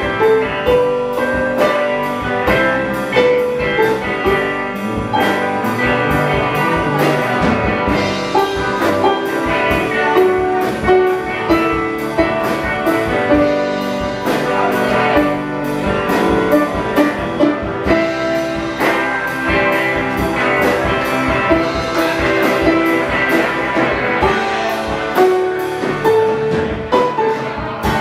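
Live band playing with electric guitars and a drum kit, the cymbals keeping a steady, quick beat.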